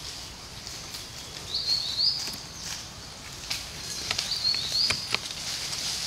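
Twigs and leaves rustling and snapping as a monkey pulls at thin leafy branches. A bird calls twice, each time a quick pair of short, high chirps.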